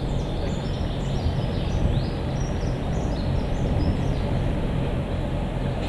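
Narrow-gauge diesel field-railway locomotive running steadily, its low engine drone even, as it hauls a train of peat wagons. Birds chirp high above it in the first few seconds.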